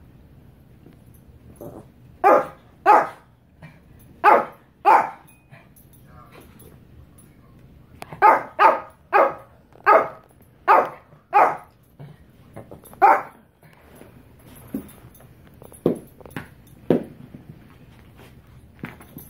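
Shih Tzu barking in play: about a dozen sharp barks in groups of two to six, then a few softer, shorter barks near the end.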